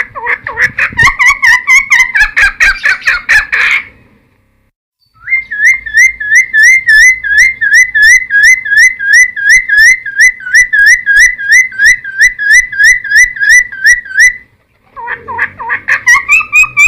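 Cucak timor (helmeted friarbird) singing: a quick tumbling phrase, a short pause, then a long run of rapid repeated upslurred whistles at about three a second, and another burst of song near the end.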